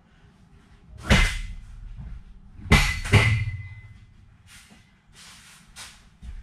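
Three loud metallic bangs as school-bus seat frames are knocked loose or dropped. The last two come close together and ring briefly after the hit, followed by softer scraping.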